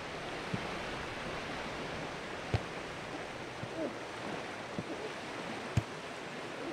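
Gentle surf washing onto a sandy beach as a steady hiss, broken by three short, sharp thumps.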